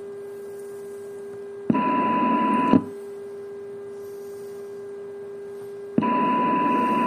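AM receiver audio from a FunCube Dongle Pro+ software-defined radio running Linrad, tuned to two test signals: the weak signal's steady low modulation tone with faint hiss. A very strong signal is switched on about two seconds in, giving a louder, higher tone with hiss that drowns out the weak tone, and is switched off again about a second later; it comes back on near six seconds. Each time the strong signal stops, the weak tone returns at once, the sign of a very fast AGC.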